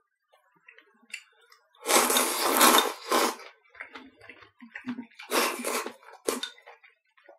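A person slurping udon noodles and broth from a small bowl: one long, loud slurp about two seconds in, then shorter slurps near the end, with small mouth and chewing sounds between.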